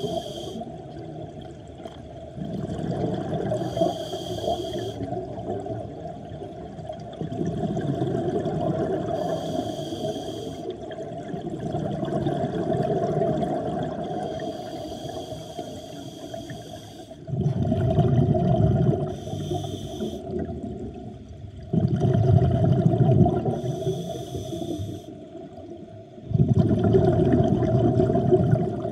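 Scuba diver breathing underwater through an open-circuit regulator. Each breath brings a short high hiss on the inhale, then a low rush of exhaled bubbles, about every five seconds. The bubble bursts are loudest in the second half, over a steady hum.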